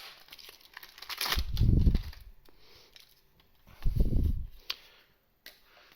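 Trading cards and pack wrappers being handled close to the microphone: light rustling and clicks, with two short, low, rubbing bumps about a second and a half and four seconds in.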